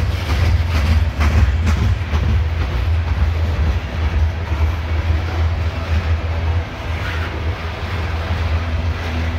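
Loaded CSX coal hopper cars rolling past close by: a steady low rumble of steel wheels on rail, with a few sharp metallic clacks between about one and two seconds in.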